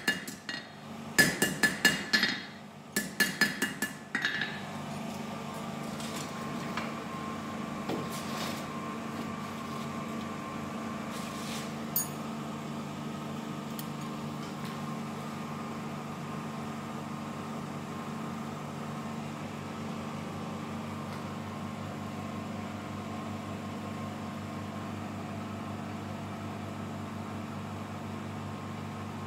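A hand hammer strikes a knife blank on a steel anvil in quick runs of ringing blows during the first four seconds. A steady fan hum then runs on.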